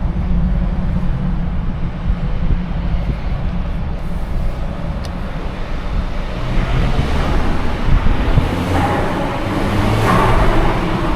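Twin-charged Mercedes on the move: a steady low engine drone, with a louder rushing sound building more than halfway through as the car gathers speed.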